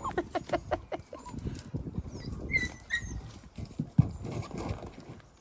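Dalmatian puppies playing with an older dog: short whines and a couple of high squeaks amid scuffling and knocks.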